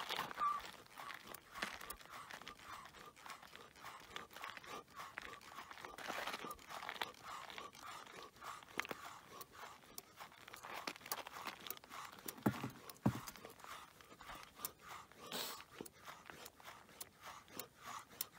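Snow crunching faintly and irregularly under a man doing push-ups, with scattered small clicks and a faint steady tone underneath.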